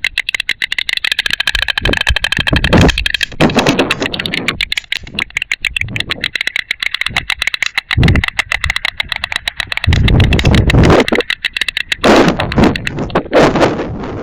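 White storks clattering their bills: a rapid, continuous wooden rattle of many clicks. This is the bill-clattering greeting display of a mated pair at the nest. Gusts of wind rumble on the microphone, loudest about eight seconds in and from ten to eleven seconds.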